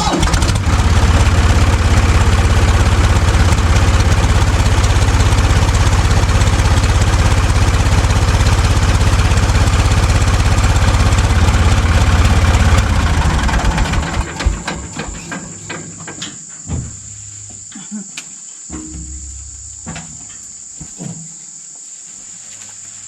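Backhoe engine running hard for about fourteen seconds as the loader bucket is moved, then dropping away. Crickets chirp steadily throughout, and a few light rustles and clicks follow once the engine quietens.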